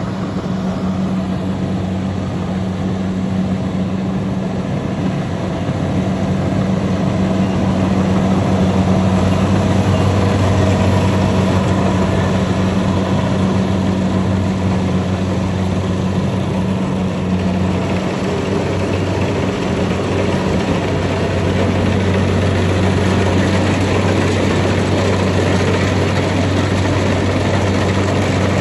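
Kubota combine harvester running steadily, with a deep, even engine hum under a dense mechanical clatter.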